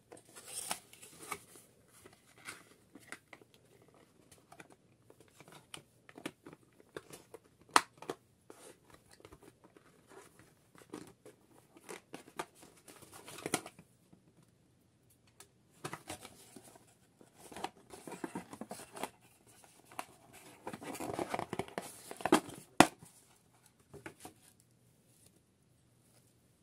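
Cardboard doll-box insert being handled as wire twist-ties are pulled out of it: irregular rustling and scraping of card with scattered sharp clicks of wire and plastic. Two louder clicks stand out, one about 8 seconds in and one near the end, after a burst of heavier rustling.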